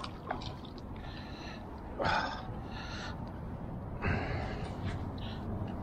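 A person breathing heavily, with two loud breaths about two seconds in and about four seconds in and softer ones between.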